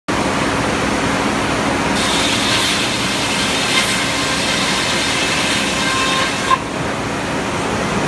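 Frick 0-C circular sawmill running steadily, its large head-saw blade spinning. From about two seconds in, the carriage feeds a log into the blade and the saw cuts, adding a brighter, higher noise that drops away with a short sharp knock near the end.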